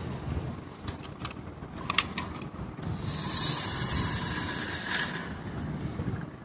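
Toy push car's wheels rolling and rattling on a floor, with a few sharp clicks and a hissing scrape from about three to five seconds in.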